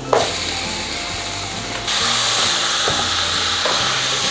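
Raw chicken pieces going into hot oil and fried onions in a pot, sizzling with a loud hiss that starts suddenly and gets louder about two seconds in. Soft background music underneath.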